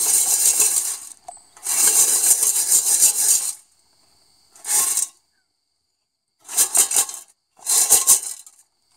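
Gravel and small rocks rattling and clinking in the metal mesh sieve of a Rotapan gold recovery pan as it is turned and shaken by hand. The rattling comes in five bursts: two long ones over the first three and a half seconds, then three short ones, the last about a second before the end.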